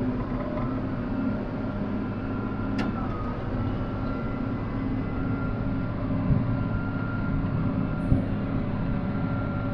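Tractor engine running steadily under load while pulling a round baler that is picking up hay, with a thin steady whine from the machinery. A single sharp click sounds about three seconds in.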